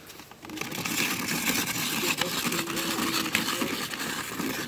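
Red hand-cranked ice shaver grinding ice as its handle is turned, a steady crunching and scraping that starts about half a second in.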